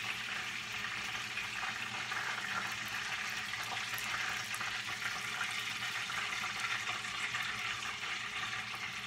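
Chicken breasts frying in hot oil in a pan, giving a steady sizzle.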